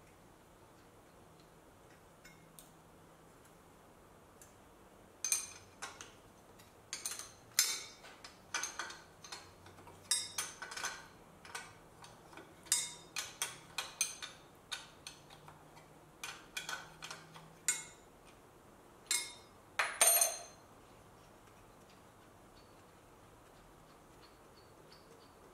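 Hand tools working on the turbo hardware of a Toyota 2JZ engine: a run of irregular metallic clicks and clinks that starts about five seconds in and stops about twenty seconds in, with the loudest clatter near the end.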